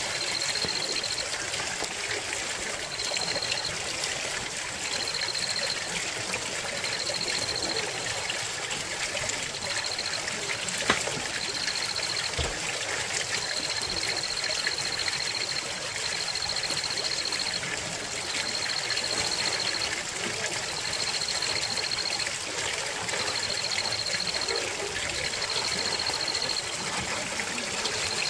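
Water running and trickling steadily. Over it, a high-pitched trill repeats in bursts of about a second, and a single sharp click sounds about eleven seconds in.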